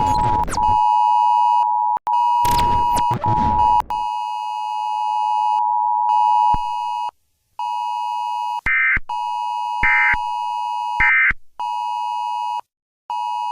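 Emergency alert system two-tone attention signal: a steady pair of close-pitched tones sounding in stretches, chopped by short dropouts and glitches. Loud bursts of static-like noise come at the start and about three seconds in, and three short higher beeps near the end.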